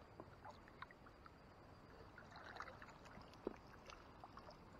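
Faint water splashing and dripping as a landing net is dipped into a creek and lifted back out, with scattered small ticks and one sharper click about three and a half seconds in.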